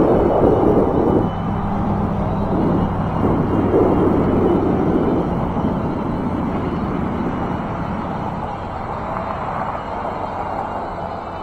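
Wind buffeting the microphone and tyre rumble from an e-bike riding along a paved path, with a faint low steady hum underneath. It swells and fades unevenly and eases off gradually as the bike slows.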